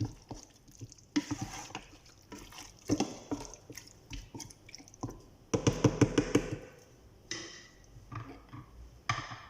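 A spoon stirring chunks of lamb in a thick tomato sauce in a pot: wet squelching mixed with clacks and scrapes of the spoon against the pot. It comes in bursts, with a busy run of quick strokes about five and a half seconds in.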